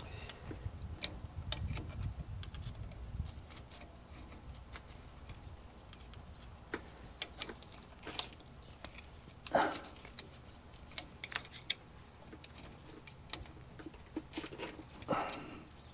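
Scattered light metallic clicks and clinks of hand work on brake parts, with a low rumble in the first few seconds and a couple of louder knocks, one in the middle and one near the end.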